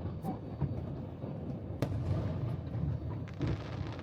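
Aerial fireworks shells bursting: a continuous low rumble of booms broken by sharp bangs, the sharpest about two seconds in.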